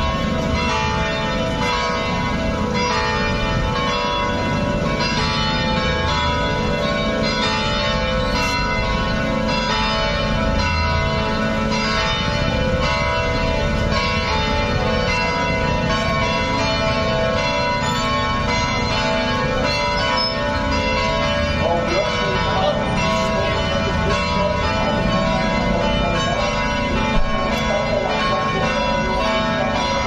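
Church bells cast by the Royal Eijsbouts foundry pealing continuously from the cathedral's bell tower, with frequent strikes whose ringing tones overlap into a dense, steady clangour, over a low background rumble.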